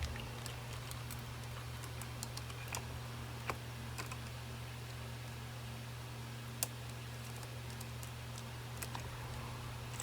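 Scattered light metallic clicks and rattles of a saw chain being fitted by hand around the guide bar of a cordless chainsaw, over a steady low hum.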